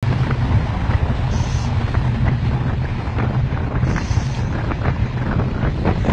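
Strong wind buffeting the microphone on a boat at sea, with irregular crackling gusts over a steady low rumble.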